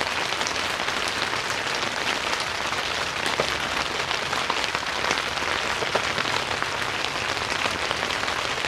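Steady rain pattering on a tent roof, heard from inside the tent as a dense patter of fine drop ticks.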